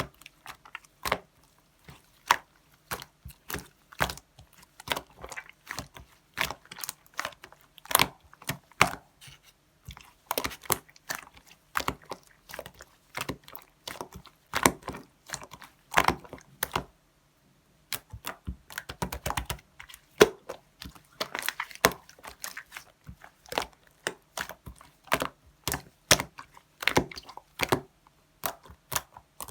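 Clear slime being squished and poked by hand, making rapid, irregular sticky clicks and pops, with a brief pause a little past halfway.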